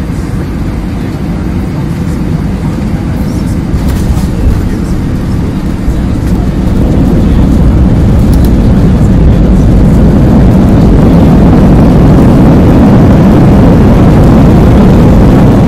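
Jet airliner landing, heard from a window seat beside the wing: steady engine and rushing air noise with a deep rumble and a brief bump about four and a half seconds in. From about six seconds in the noise builds to a louder, steady roar as the plane slows on the runway with its spoilers raised.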